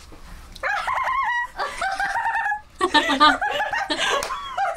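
Girls giggling and squealing with laughter in short high-pitched peals, starting about half a second in.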